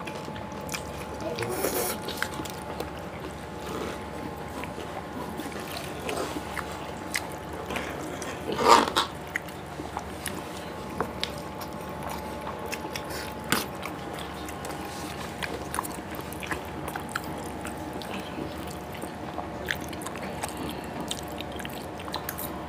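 Close-up eating sounds of two people: slurping cheesy Maggi instant noodles, chewing and smacking lips, with small clicks of forks on a metal tray. About nine seconds in there is one louder noisy burst, and a faint steady hum runs underneath.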